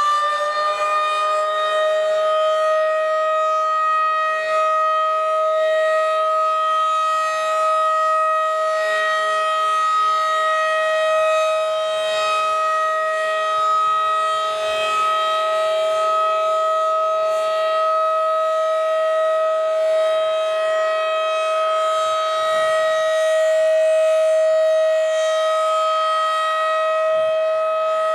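Federal Signal 2001-DC tornado siren sounding its weekly test: it finishes winding up to full pitch about a second in, then holds one loud, steady tone.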